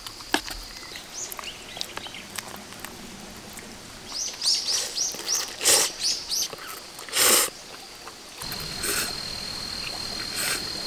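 Outdoor ambience with a bird chirping in a quick run of high calls midway, over a faint steady high whine. Twice, short loud noisy slurps from eating cup noodles stand out.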